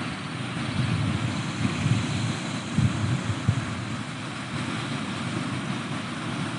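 Steady rush of Pacific Ocean surf, with wind buffeting the microphone in irregular low gusts.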